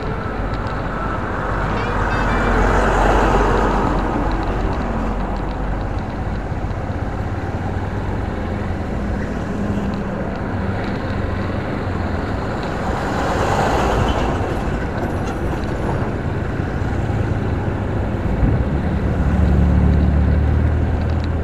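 Ride-along sound from a motorcycle in light traffic: the engine running under steady wind and road noise, growing louder a few seconds in and again about halfway through. A deeper engine drone comes in near the end.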